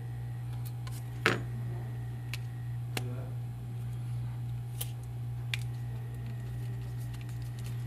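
Small plastic and metal handling noises from a smartphone being reassembled with tweezers: a few sharp isolated clicks and taps over a steady low hum.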